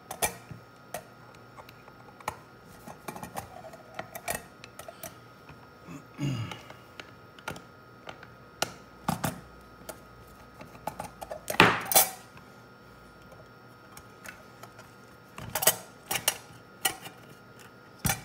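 Scattered clicks, taps and knocks of a screwdriver working the screws and hands lifting the cover off a UHF CB radio's case, with loose screws clattering on the bench. The loudest knock comes a little before two-thirds of the way through, with a cluster of clicks near the end.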